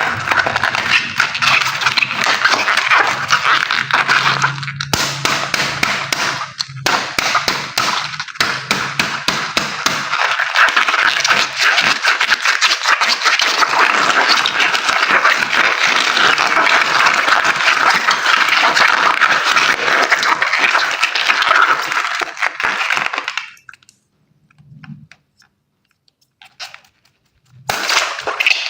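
Water gushing and splattering out of cut-open water balloons, a dense crackling spray. It stops about 23 seconds in and starts again near the end.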